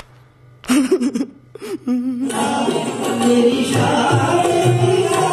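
A brief inserted film clip with a man's short vocal exclamations, then, from a little over two seconds in, qawwali music: male voices singing over harmonium and tabla.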